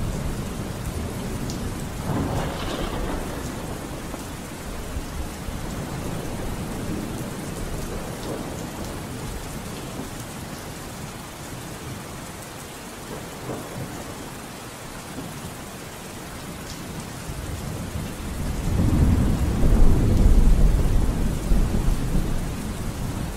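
Steady rain with rolling thunder. A long, low thunder rumble builds in the last few seconds and is the loudest part.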